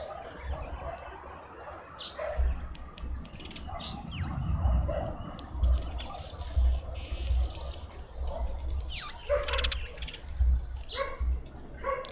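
Small birds chirping and calling around a garden seed feeder, with a low, irregular, gusting rumble underneath from a couple of seconds in.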